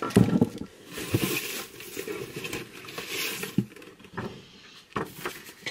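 Paper and packaging rustling and crinkling as items are handled and taken out of a box, with a few light knocks. A knock and rustle just after the start is the loudest part.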